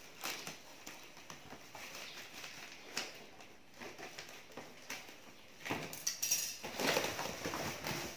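Clear plastic wrapping crinkling and a cardboard box scraping as a wrapped item is handled and pulled out of the box, with scattered crackles that grow louder and busier from about six seconds in, when the item is lifted out.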